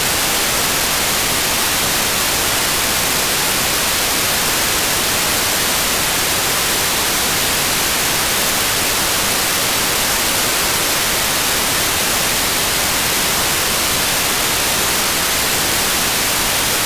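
Steady, loud FM receiver static (white-noise hiss) from an AirSpy Mini SDR tuned to the ISS 145.800 MHz downlink. The static is the open receiver with no carrier coming in: the space station's transmitter is keyed off between replies.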